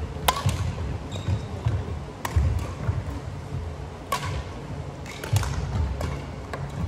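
Badminton rally: several sharp racket strikes on the shuttlecock a second or two apart, over the thud of players' footsteps on the wooden court floor, echoing in a large sports hall.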